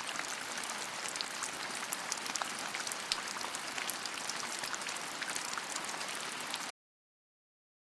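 Steady rain falling, many sharp drop ticks over an even hiss; it cuts off suddenly near the end.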